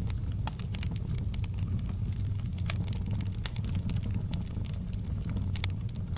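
Fireplace fire crackling: irregular sharp pops and snaps, a few a second, over a steady low rumble of the flames.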